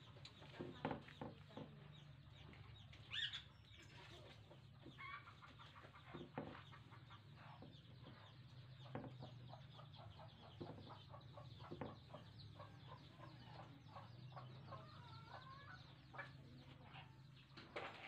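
Quiet background with a low steady hum, scattered light clicks and taps, and a few faint short animal calls that come and go.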